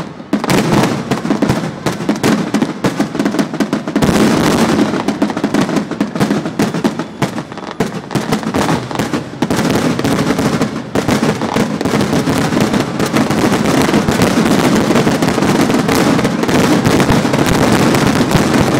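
Fireworks finale: a dense, continuous barrage of aerial shell bursts, the booms and crackles overlapping with hardly a gap, growing steadier in the second half.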